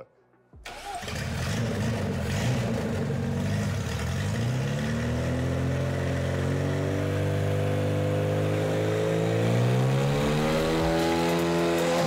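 A Lada car engine fitted with an oversized Kirovets tractor turbocharger comes in about half a second in and runs steadily. Its pitch climbs slowly over the second half as it revs up.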